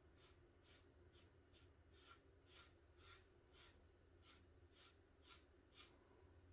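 Faint, rhythmic swishes of a small foam brush dragged back and forth over birch plywood, about two strokes a second, dry-brushing blue paint.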